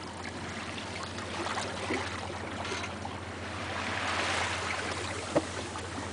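Water rushing and lapping along the hull of a small sailboat under way in a light breeze, swelling briefly about four seconds in. One short sharp knock near the end.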